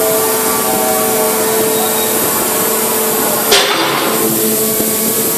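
Tunnel boring machine's machinery running with a steady drone and hiss and a held whine, with a single sharp knock about three and a half seconds in.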